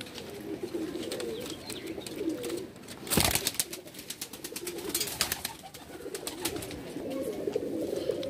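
Domestic pigeons cooing throughout, with a single loud knock about three seconds in and scattered clicks and scrapes, as a bird is handled and taken out of its wire-mesh cage.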